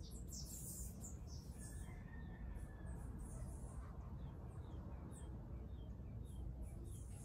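Steady low room noise with birds chirping in the background, short high chirps repeating two or three times a second in the second half.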